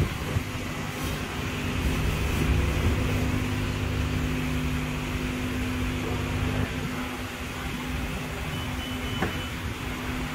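Car wash machinery running: a steady mechanical hum under a rushing noise. A quick run of faint high beeps comes near the end.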